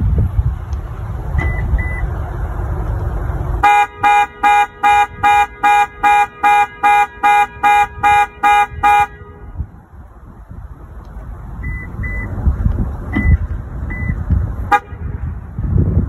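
Parked SUV's car alarm sounding the horn in a rapid, even series of about a dozen honks, a little over two a second, for about five seconds before stopping. A low rumble is heard before and after the honking.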